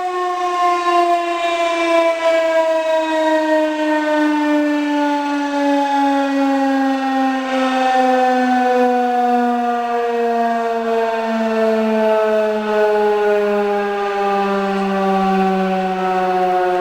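Federal Signal 2001-130 rotating electromechanical siren winding down after a short alert test, its single loud tone falling slowly and evenly in pitch.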